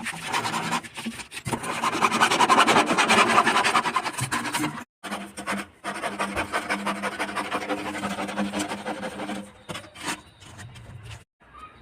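Rapid rasping, scraping strokes of a tool working plastic PVC pipe, with a brief break near the middle. A faint steady low hum runs under the second half, and the scraping dies away near the end.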